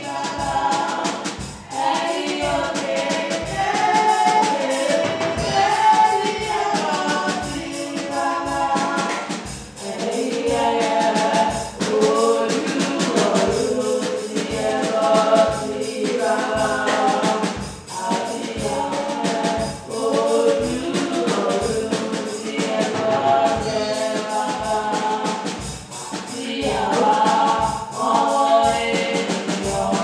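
Choir singing a gospel praise song over a steady percussion beat.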